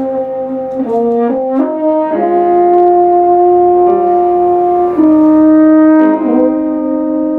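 French horn and euphonium playing a slow brass duet of long held notes. The pitch moves to new notes about a second in, again just after two seconds, and near five and six seconds.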